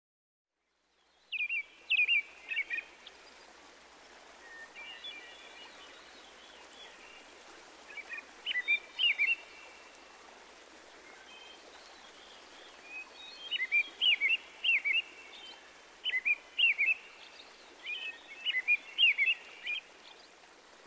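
Songbird singing short, quick chirping phrases that repeat every few seconds over a faint steady outdoor hiss.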